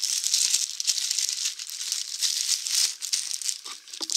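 Clear plastic shrink-wrap on a large artbook crinkling and crackling as it is handled and pulled open.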